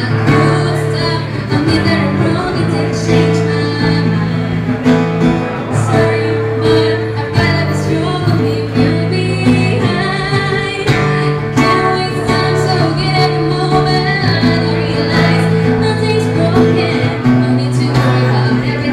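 A woman singing a song into a handheld microphone, over a guitar accompaniment.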